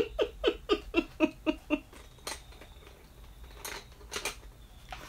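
A quick run of short, high, squeaky giggles, about seven a second, dying away about two seconds in, followed by a few soft clicks.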